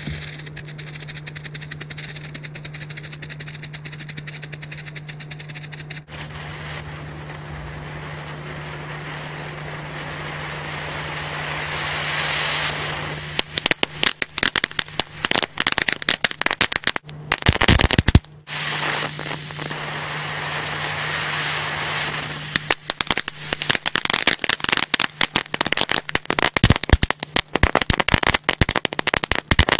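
Small indoor category 1 fireworks burning. A steady hiss grows louder over the first dozen seconds, then turns to dense, rapid crackling. The hiss returns briefly and the crackling starts again near the end.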